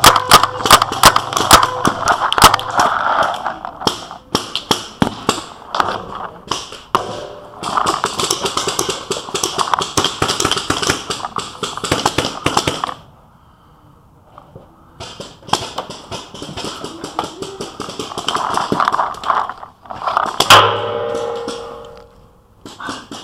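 Paintball markers firing rapid strings of sharp pops, in bursts with pauses, briefly quiet about midway; one loud crack about twenty seconds in.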